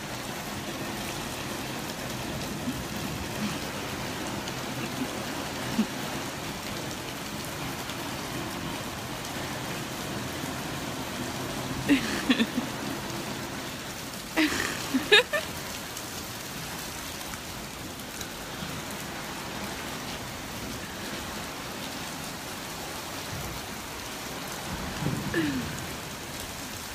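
Steady rain falling, an even hiss. About halfway through come a few brief, louder sounds that slide in pitch, and a weaker one near the end.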